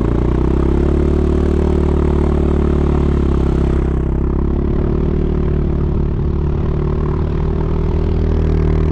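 A vehicle engine running at a steady, even speed, holding its pitch throughout.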